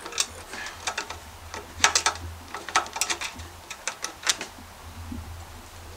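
Hand ratchet clicking in short, irregular runs of sharp clicks as a bolt on a small engine is turned with a socket.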